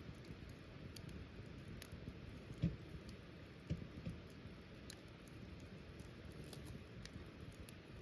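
Wood fire crackling in a small metal fire pit, with scattered faint ticks and pops over a low steady hiss. Three dull thumps, the loudest sounds, stand out near the middle.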